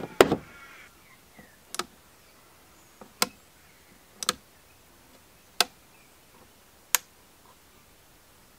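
Six sharp single clicks spaced one to one and a half seconds apart, the first the loudest: the controls of a PWM trolling-motor controller box being switched and turned, reverse and speed.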